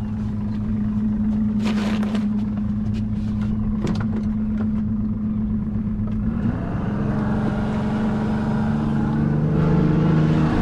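Boat engine running under way, its pitch stepping up about six and a half seconds in as it is throttled up, with a few sharp knocks in the first few seconds.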